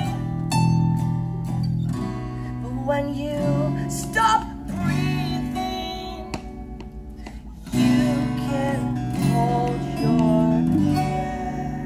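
Live acoustic band music: fingerpicked acoustic guitar over bass guitar, with a man's voice singing in phrases. The music fades near the end as the song winds down.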